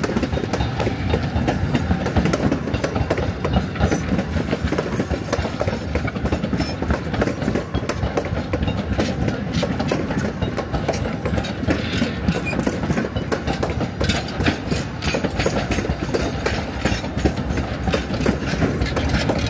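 Durango and Silverton narrow-gauge steam train hauled by K-28 No. 473 running past, its wheels clattering steadily over the rails.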